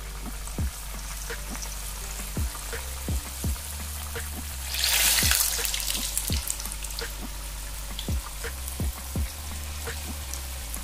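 Potato-stuffed maida-dough rolls deep-frying in hot oil in a kadai: a steady sizzle with scattered crackling pops, briefly louder for about a second around five seconds in.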